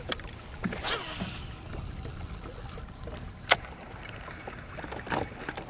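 Wind and water around a small fishing boat, with a few scattered clicks and knocks from handling rod and reel on the deck. The sharpest click comes about three and a half seconds in.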